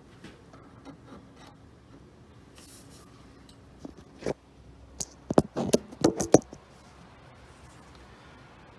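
A gauge being shifted and set down on the planer: faint rubbing, then a quick run of sharp clicks and taps from about four seconds in, as it is moved across to measure the cutterhead's height on the other side.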